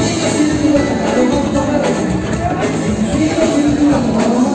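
Loud dance music with singing, playing steadily over the dance floor.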